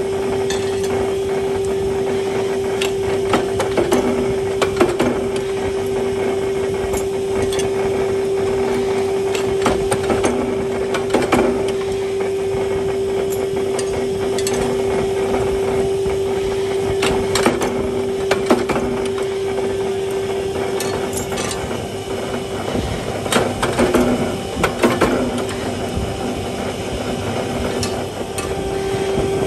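Hydraulic forging press heading red-hot steel rods: a steady machine hum, with clusters of sharp metal knocks every six or seven seconds as the die strikes and the rods are handled.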